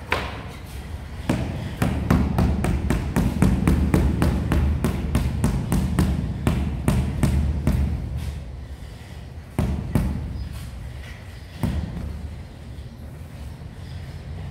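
Rubber mallet tapping a large ceramic floor tile to bed it into the mortar: a knock, then a quick run of dull taps at about five a second for several seconds, then two single harder knocks a couple of seconds apart.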